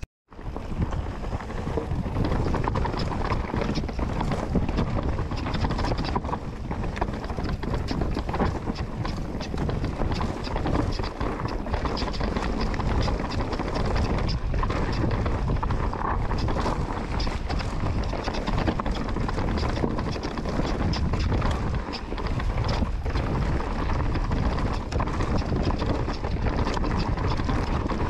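Wind rushing over the microphone on a moving mountain bike, over a steady low rumble from the tyres on the trail, with many small rattles and knocks from the bike.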